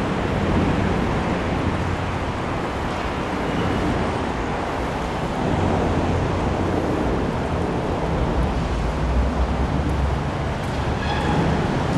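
Steady outdoor rumble with wind buffeting the microphone.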